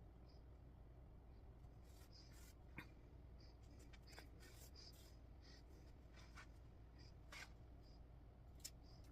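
Faint ticks and short rustles of a needle and thread being pulled through cross-stitch fabric, scattered irregularly over a low steady room hum.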